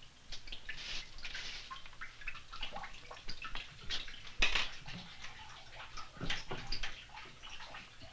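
Farm kitchen work sounds: an irregular run of small clicks and scrapes from rice and cookware being handled, with one sharp knock about four and a half seconds in.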